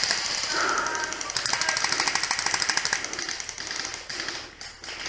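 Airsoft gun firing full-auto bursts: a rapid, even rattle of shots. One burst ends just after the start, and a longer burst of about a second and a half follows.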